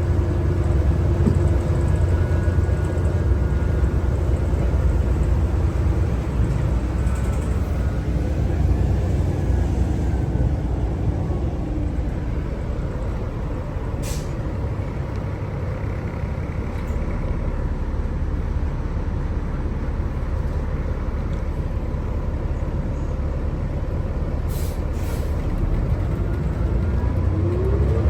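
Cabin sound of a New Flyer D60LFR articulated diesel bus under way: the Cummins ISL9 engine and road noise make a steady low rumble with a faint transmission whine. A couple of brief sharp clicks come mid-way and later, and near the end a whine rises in pitch as the bus speeds up.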